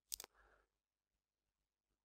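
Near silence: room tone, with two short clicks right at the start.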